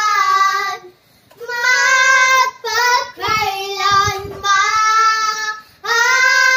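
Young girls singing in long held notes, breaking off about a second in, then shorter phrases, then a new long held note near the end.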